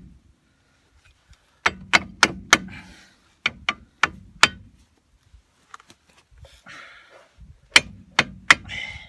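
Hammer blows on metal parts, knocked side to side. There are three quick runs of three or four sharp strikes each: two in the first few seconds and one near the end, with some faint scraping between the runs.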